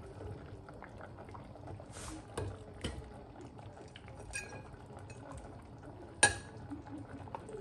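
A wooden spoon scraping and knocking against a glass stock pot as dried fish is lifted out of simmering soup, with the broth bubbling underneath. There are a few light knocks and one sharp clink about six seconds in, the loudest sound.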